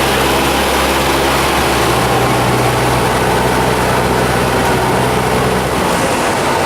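Cessna 172's four-cylinder piston engine and propeller droning steadily, heard from inside the cabin over a haze of wind noise. The engine's tone shifts slightly about a second and a half in and again near the end.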